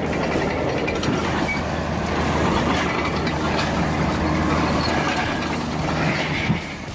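Bulldozer's diesel engine running steadily, a low engine drone with a haze of mechanical noise over it.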